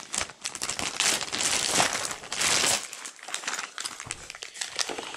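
Clear plastic bag crinkling and rustling as parts are handled in it and pulled out, in irregular bursts that ease off in the second half.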